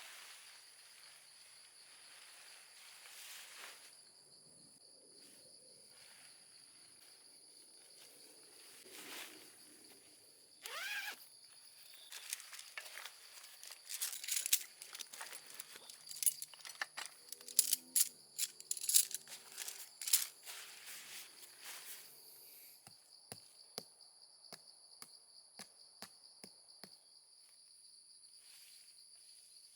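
Insects singing steadily in two high-pitched tones, with gear being handled over them: rustling and crinkling, a short rising squeak, a busy stretch of clicks and crackles in the middle, then a run of sharp ticks near the end.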